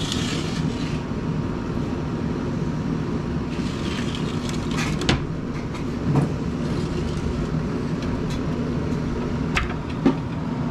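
A steady low rumble, with a few sharp clicks and knocks from plates and food being handled on a glass table.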